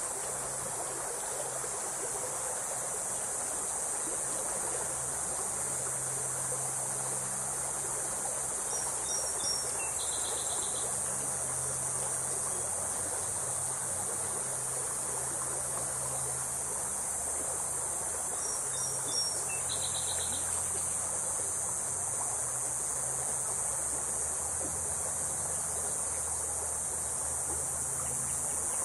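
A steady, high-pitched chorus of insects buzzing in the riverside trees. A brief trilled call comes twice, about ten seconds apart.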